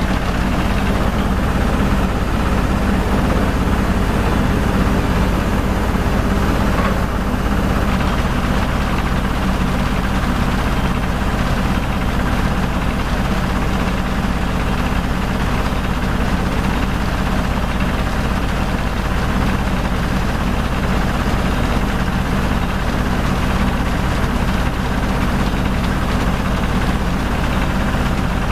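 HF150T water well drilling rig running steadily while drilling: a loud, even engine sound with a strong low rumble that does not change.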